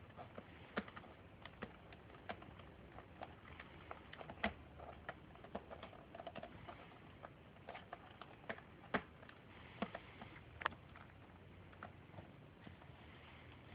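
A cat playing on a scratching post: faint, irregular sharp clicks and taps from its claws and paws striking and catching the post, a few of them louder.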